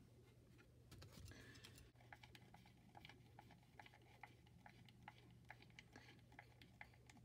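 Faint, irregular clicking of a screwdriver turning a small screw into the aluminium bottom plate of a wooden block mouse, after a brief scrape about a second in.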